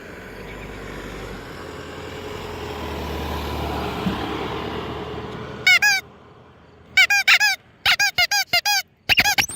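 A FedEx truck passes, its noise swelling and fading over about six seconds. Then a handheld horn is honked in short, squeaky blasts: two about six seconds in, then a quick run of about nine near the end.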